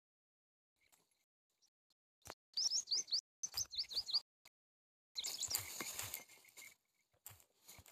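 A small bird chirping: two quick runs of four or five short, hooked, high chirps, followed about five seconds in by a couple of seconds of scratchy noise.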